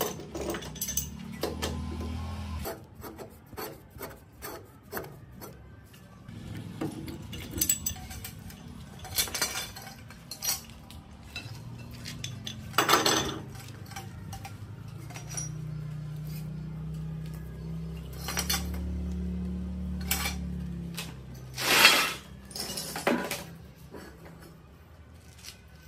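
Metal hand tools clinking and scraping against the parts of an old piston air compressor: scattered clanks with a few short, harsh scrapes, the loudest about 22 seconds in.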